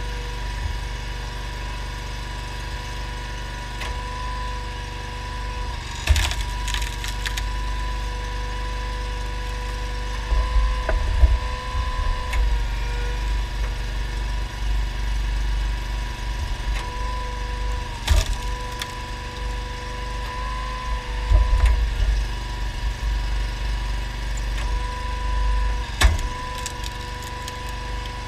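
Homemade hydraulic log splitter powered by a Honda GX690 V-twin engine, running steadily with a hum that dips slightly under load, while logs are forced onto the wedge and split apart with several loud cracks and splintering.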